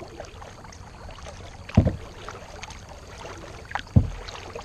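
Kayak paddling: faint splashing and dripping from the paddle, with two short dull thumps about two seconds apart, the first about two seconds in and the second near the end.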